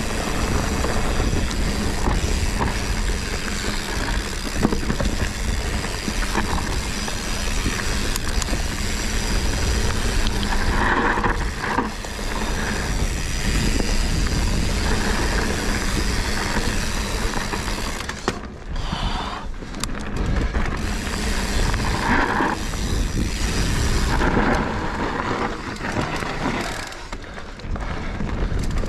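Mountain bike ridden fast down a forest dirt singletrack: wind rushing over the camera microphone, with the tyres rolling over the dirt and the bike rattling over bumps. The wind rush eases briefly twice in the second half.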